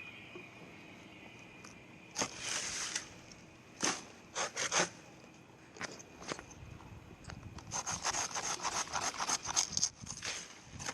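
Hand pruning saw cutting through palm fronds: a few separate scraping strokes, then a quick run of rapid back-and-forth strokes from about the middle to near the end.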